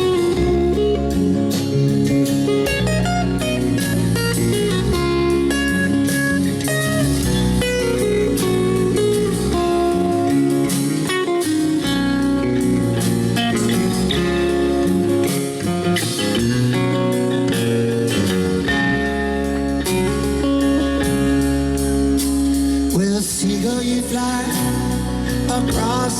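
Blues music led by guitar, with sliding, bending notes near the end.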